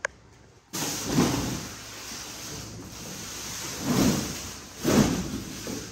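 Packaging of a compressed, roll-packed mattress being unwrapped: a continuous rushing, rustling noise of plastic being pulled and slid, starting suddenly about a second in and swelling several times.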